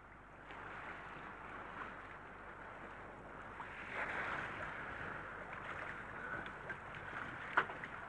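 Wind and choppy sea water around an anchored boat: a steady hiss, with a sharp click near the end.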